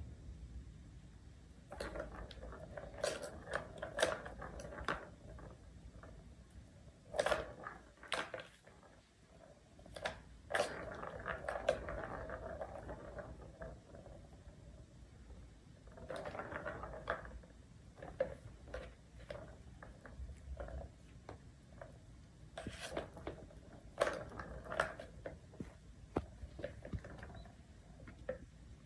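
Plastic balls rolling around the circular tracks of a tower-of-tracks cat toy as kittens bat at them. The rolling comes in several spells of a few seconds each, with sharp clicks of balls and paws knocking the plastic.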